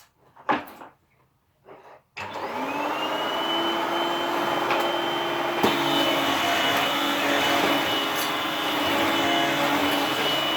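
Upright vacuum cleaner switched on about two seconds in: its motor spins up with a rising whine that settles within a second or so, then runs steadily.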